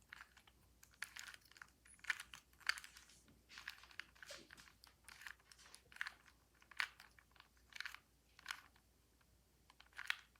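2x2 Rubik's cube being twisted by hand: a faint, irregular run of short plastic clicks and rattles as its layers turn, with a short pause near the end.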